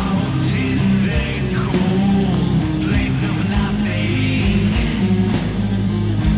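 Heavy metal music with distorted electric guitar chords over a steady drum beat.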